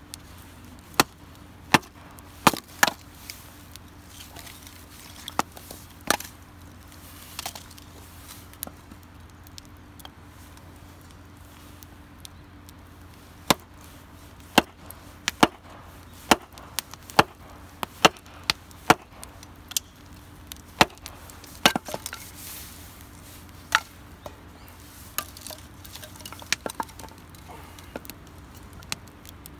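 Small hatchet splitting thin firewood sticks into kindling: many sharp wooden chops and knocks as the blade bites and the stick is struck down on a wooden chopping block, in irregular runs of a few strikes.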